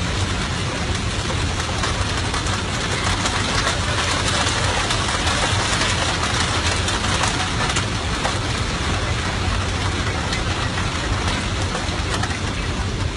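Heavy rain hitting an airliner's cockpit windshield in a thunderstorm, a steady dense hiss of many fine drop impacts over a constant low hum of the aircraft.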